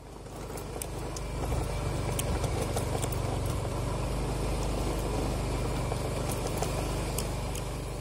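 Yamaha motor scooter's engine running steadily while riding at low speed, heard from the rider's seat, with scattered sharp clicks and rattles over the rough gravel lane.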